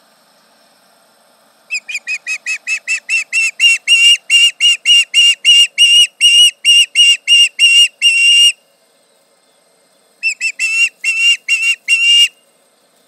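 Osprey alarm calls: a fast run of sharp, whistled notes, about four a second, growing louder over the first couple of seconds and lasting about seven seconds. After a short pause comes a second, shorter run of about eight notes.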